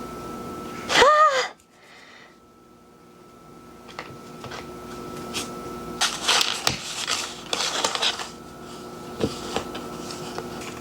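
A short high vocal sound about a second in, then a couple of seconds of rustling, scraping and light tapping as small objects are handled, over a steady hum.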